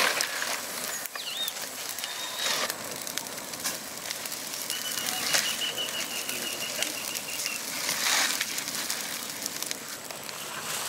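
A fire crackling with a steady patter of small pops, swelling briefly twice, with a few bird chirps over it.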